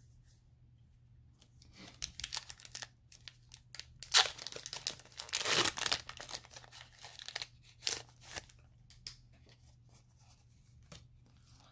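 Foil wrapper of a Pokémon Sun & Moon booster pack crinkling and then torn open, the main rip coming about four seconds in and lasting a few seconds, with a few more crinkles after it as the cards are drawn out.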